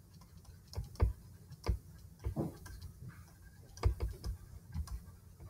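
Faint, irregular taps and light knocks of a stylus on a pen tablet as words are handwritten.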